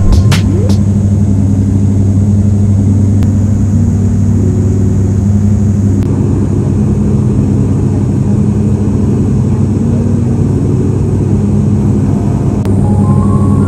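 Steady drone of an ATR 42-600's turboprop engines and propellers heard inside the passenger cabin in flight, a constant deep hum with a second hum above it.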